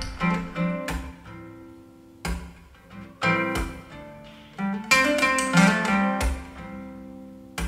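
Indie/folk song intro: acoustic guitar chords plucked and strummed, each one ringing out, with a sharp percussive hit on some of them, played back through a pair of JBL 4305P active studio monitors.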